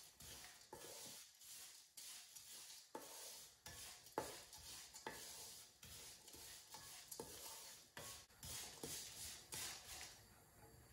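Wooden spatula stirring and scraping crumbled jaggery around a stainless steel karahi, in repeated short strokes with light knocks against the pan, one sharper knock about four seconds in.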